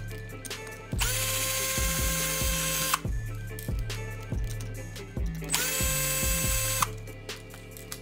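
Power screwdriver running twice, about two seconds and then just over a second, each with a steady whine, backing out screws. A background music track with a steady beat plays throughout.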